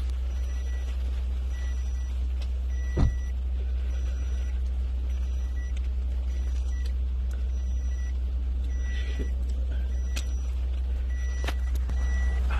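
An electronic warning beep repeating a little faster than once a second over a steady low rumble. There is a sharp knock about three seconds in and a click near the end.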